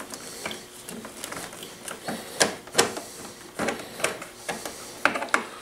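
Scattered small clicks and clatters of a screwdriver and hands taking out a Phillips screw at a motorcycle's plastic radiator guard. A few sharper knocks come a little past halfway and again near the end.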